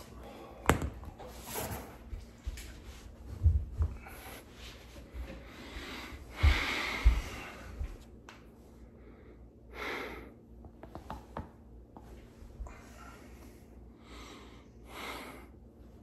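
A person lying face-down breathing out noisily as his back is pressed down by another person's hands. A few short, deep thumps stand out, about half a second, three and a half, and six and a half to seven seconds in.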